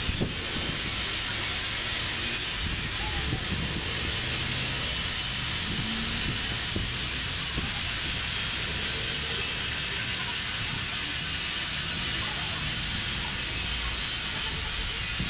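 Steady hiss of compressed air flowing through an air hose into a truck inner tube as it inflates.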